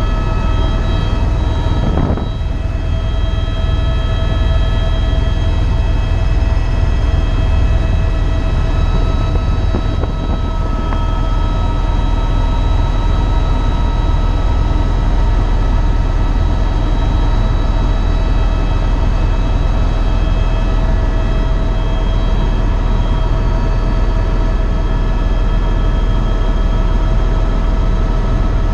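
Eurocopter EcoStar helicopter running steadily: its single turboshaft engine gives a steady whine of several tones over a heavy, low rotor drone.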